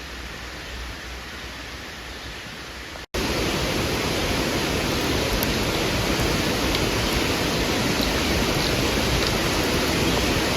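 Steady rushing noise with no distinct strikes or clicks. It cuts off abruptly about three seconds in and resumes louder.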